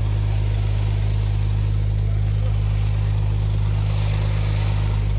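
Logging truck's diesel engine running with a steady low drone.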